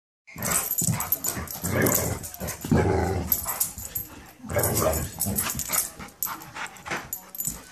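An adult dog and a puppy playing rough together, with several bursts of play-growling and barking a second or so apart, then quieter scuffling.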